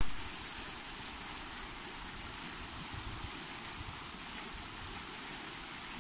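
Steady outdoor rushing noise of a shallow creek running over its bed, with an uneven low rumble beneath it.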